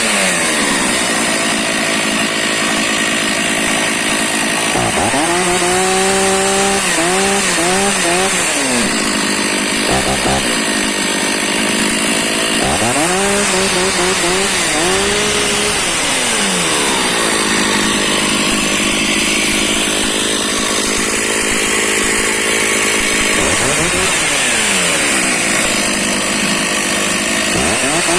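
Stihl MS460 two-stroke chainsaw running, its engine revved up and let back down to idle several times: rising at about five seconds, again at about twelve and a half, and briefly near twenty-four, idling in between.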